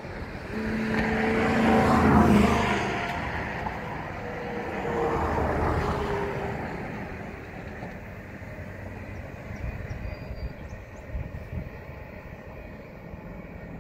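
Two road vehicles passing close by, one after the other: the first, and louder, swells to a peak about two seconds in and fades; the second passes around five seconds in with a slightly falling tone. After them a low, steady rumble remains.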